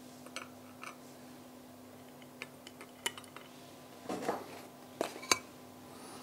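Hands handling the parts of an electronic filter wheel and its cover plate: scattered light clicks and taps of hard parts, a brief rustle about four seconds in, and the sharpest click a little after five seconds.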